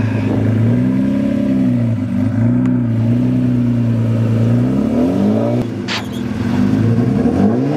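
Turbocharged 3.2-litre V6 of a 1997 Acura NSX with a custom exhaust, running at low revs as the car is eased away on the clutch in a manual gearbox. Its pitch swells and dips several times with small changes of throttle, and there is a single sharp crack about six seconds in.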